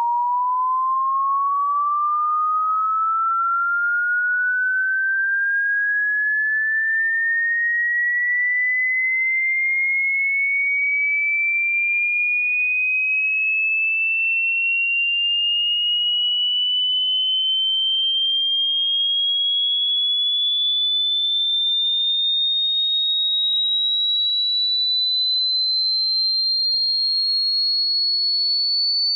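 Electronic pure-tone frequency sweep: a single steady sine tone rising slowly and evenly in pitch, from a high hum to a piercing whistle.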